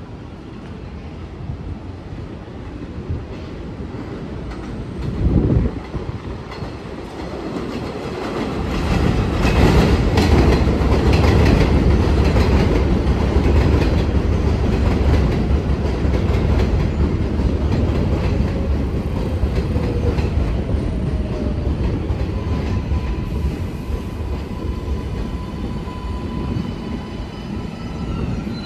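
New York City Subway 7 train of R188 cars arriving at a station: the rumble and clatter of its wheels on the rails builds from about six seconds in and then holds loud and steady. There is a brief thump about five seconds in, and a faint falling whine as it slows near the end.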